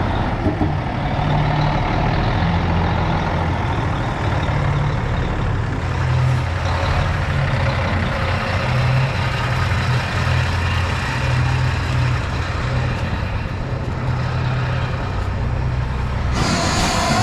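Heavy diesel farm machinery running steadily with a low engine drone and mechanical noise. Near the end it cuts abruptly to music.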